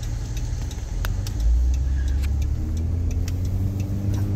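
Car engine and road rumble heard from inside the cabin. The rumble swells about a second and a half in, and the engine note climbs slowly as the car picks up speed.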